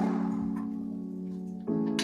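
Instrumental background music: sustained chords, with a new chord starting about one and a half seconds in.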